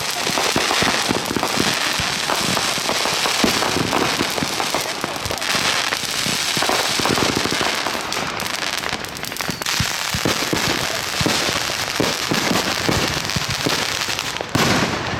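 Consumer fireworks going off in a dense, continuous crackle of rapid pops and bangs with no let-up.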